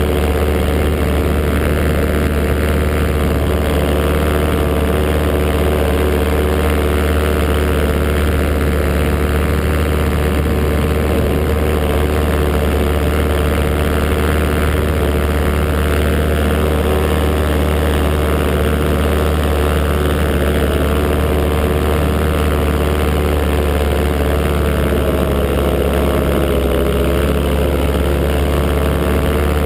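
Paramotor engine and propeller running steadily in flight, close to the microphone, with a brief dip in pitch a few seconds before the end.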